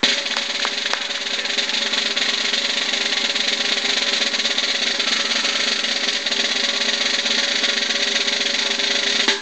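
Music carried by a steady, unbroken snare drum roll that cuts off suddenly at the end.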